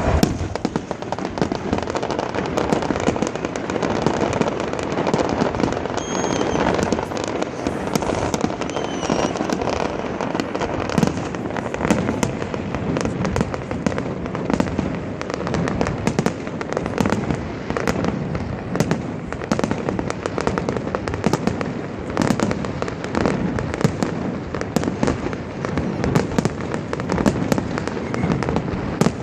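Fireworks display: a dense, unbroken barrage of bangs and crackling from many shells bursting one over another.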